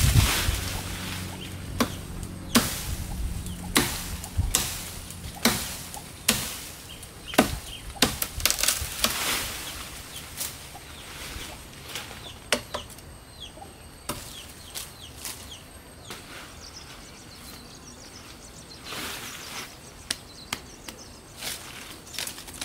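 Blade chopping into the branches of an old lychee tree: irregular sharp knocks, coming thick in the first half and sparser later, with brief rustles of leafy branches. Birds call faintly in the background.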